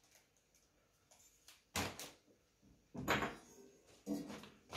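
Metal pan supports being set down and fitted onto a stainless-steel gas hob: three short clunks of metal on metal, about a second apart.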